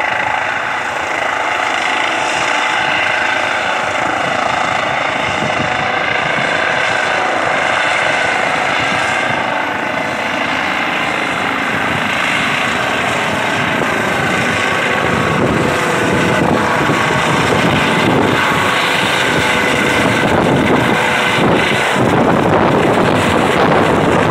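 Eurocopter EC135 rescue helicopter's rotors and turbines running as it lifts off and climbs, a steady high whine over the rotor noise. It grows louder as it passes overhead in the second half, with the rotor downwash buffeting the microphone.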